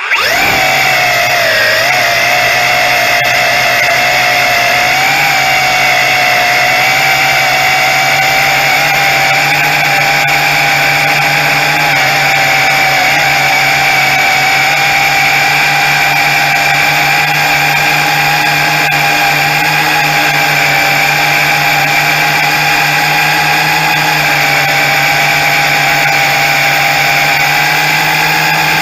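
Tarantula X6 quadcopter's motors and propellers whining steadily, heard up close from a camera mounted beneath the drone, as it lifts off from grass and climbs.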